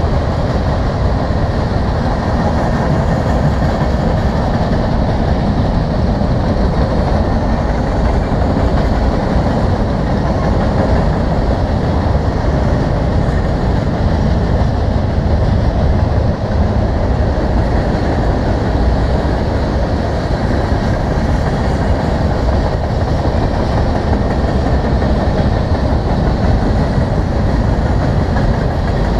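Freight train cars rolling past: steel wheels running steadily on the rails as covered hoppers and tank cars go by, with no locomotive among them.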